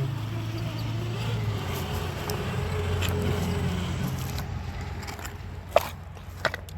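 Electric RC rock crawler's motor and geared drivetrain running as the truck crawls over the course. It swells a little in the middle and eases off, with two sharp clicks near the end.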